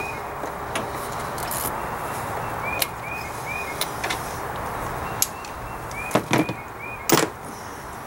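Scattered sharp clicks and knocks from hand tools and parts being worked in an engine bay, a few at a time and irregularly spaced, the loudest near the end. Under them is a steady hiss, with faint repeated chirps.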